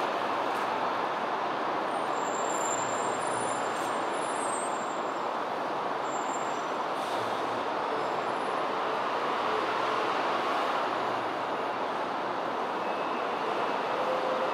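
Steady, even roar of distant road traffic.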